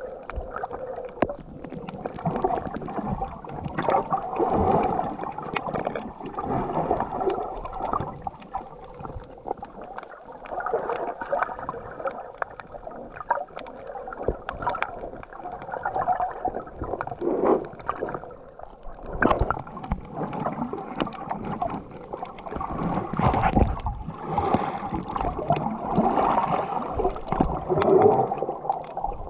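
Water gurgling and sloshing around an underwater camera as it moves through the sea, in irregular swells with scattered small clicks, muffled by being recorded underwater.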